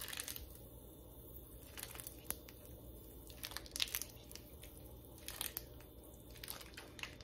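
Plastic squeeze bottle of lemon juice squirting onto raw seasoned ribs in a plastic container, in several short, faint spurts with small plastic handling noises.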